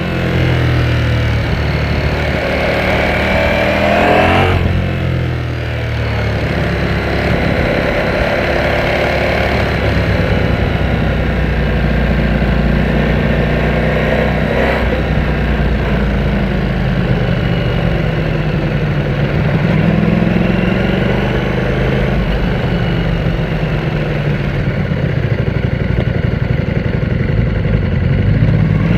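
Ducati Panigale V4S's V4 engine under way: it revs up over the first few seconds, drops off sharply about four and a half seconds in, then runs steadily with slow rises and falls in pitch.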